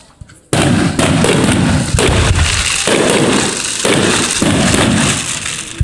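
Aerial fireworks going off in a rapid barrage: quiet at first, then a sudden loud onset about half a second in and a continuous run of booms and crackling bursts, with brief dips, to the end.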